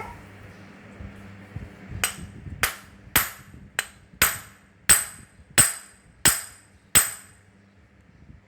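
Hammer striking the metal parts of a disassembled handheld electric cutter, about nine ringing metal blows at a steady pace of roughly one and a half a second, preceded by a few light taps. The blows are an attempt to drive out the shaft and bearing, which will not come free because a retaining clip is still inside.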